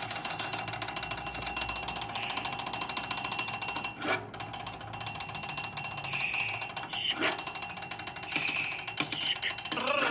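Inner metal parts of a vibraphone worked with a wooden stick: a fast, continuous rattling over steady ringing tones, with a couple of sharper knocks and two brief hissing swells about six and eight seconds in.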